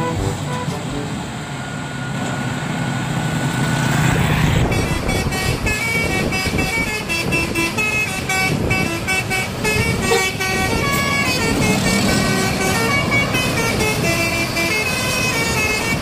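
Basuri multi-tone 'telolet' bus horn playing a quick melody of short stepped tones. A low engine rumble and a slowly rising tone lead into it about four seconds in.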